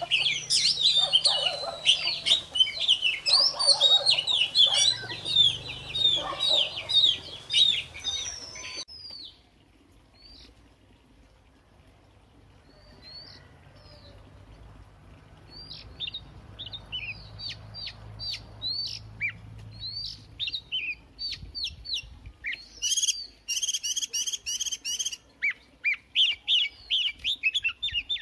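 White-rumped shama singing: a fast, loud run of varied whistled and chattering phrases that drops off suddenly about nine seconds in to softer, sparser notes, then builds back to loud song with a quick run of repeated notes near the end.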